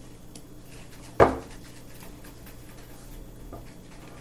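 One sharp knock about a second in, a hard object striking a tabletop, with a brief ring after it and a few faint taps around it.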